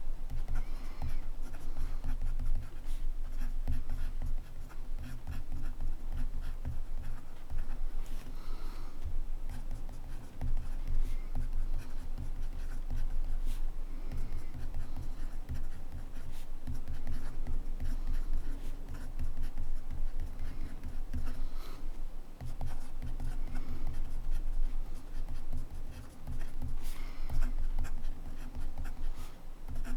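Montblanc Meisterstück 144 fountain pen writing on paper: a steady run of quick, irregular nib strokes.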